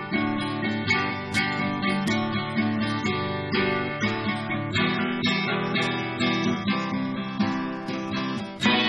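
Gibson J-160E acoustic guitar strummed in a steady chord rhythm, with a louder strum near the end.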